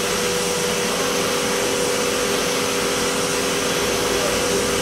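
CNC machining center's spindle running a small end mill through a light finishing cut on a mold block: a steady hiss with a constant whining tone.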